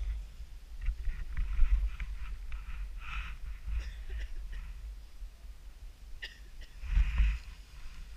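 Wind rumbling on a helmet-mounted action camera's microphone, with intermittent scraping of skis on snow; the rumble swells about seven seconds in.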